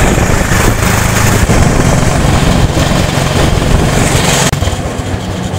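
MTK-2 motorized rail trolley (draisine) running on tram rails at about 40 km/h: a steady engine hum with rolling and wind noise. About four and a half seconds in the sound cuts suddenly to quieter, slower running with a faint steady high tone.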